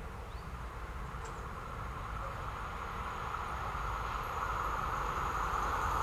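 An Alstom Régiolis regional train approaching along the track, its rolling noise rising steadily as it nears.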